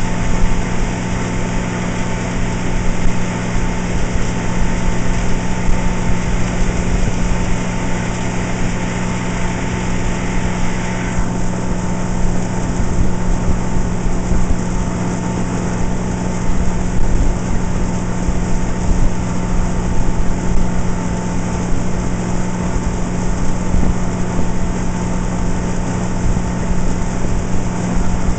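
Motorboat engine running steadily at speed while towing an inflatable tube, under a rush of wind and water noise.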